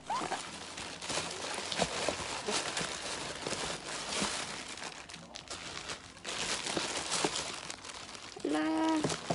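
Tissue paper and plastic bag wrapping crinkling and rustling as a shoe is lifted out of its box. A woman's voice comes in briefly near the end.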